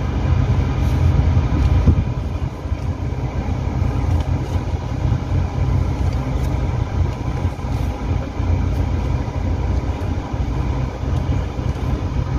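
Car engine running and tyres rolling as the car reverses slowly, heard from inside the cabin as a steady low rumble.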